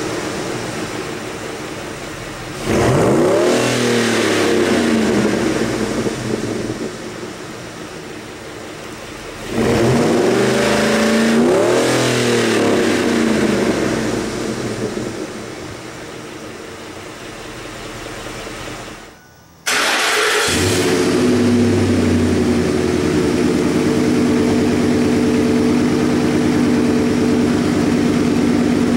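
2004 Ford F-150's 5.4L 3-valve Triton V8 through a Corsa cat-back exhaust, idling and revved twice, each rev climbing sharply and sinking slowly back to idle. About twenty seconds in the sound breaks off and a louder, steady idle follows.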